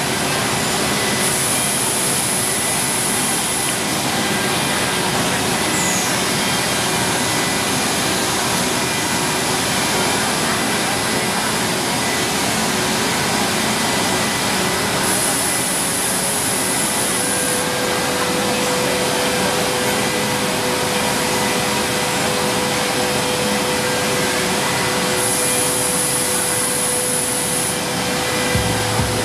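CNC wood machining center with HSD spindles running as it mills a wooden block: a steady loud rush of noise. A high-pitched whine comes in three times for a couple of seconds each, and a steady hum tone joins about two thirds of the way through.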